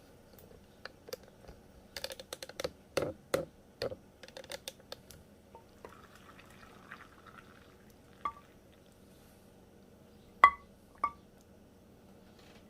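Glass canning jar and utensils being handled: a run of clicks and knocks, then a short pour of hot vinegar brine about six seconds in, and a few ringing glass clinks, the loudest two near the end.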